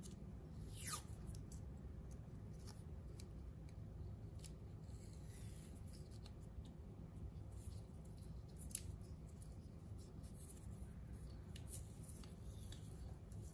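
Black vinyl electrical tape being pulled off its roll and wound around wires: faint rasping and crinkling, with a short falling squeak about a second in and a sharp click a little past the middle.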